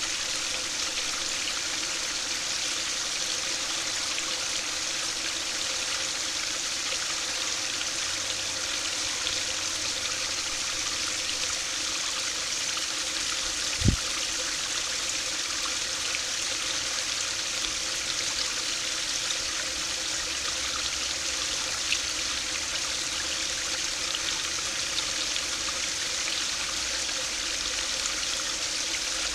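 A small stream pours over a low concrete weir into a shallow pool with steady splashing and babbling. There is a single brief low thump about halfway through.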